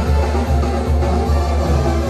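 Loud live music from a stage sound system in a large open arena, with a heavy bass beat pulsing about three times a second.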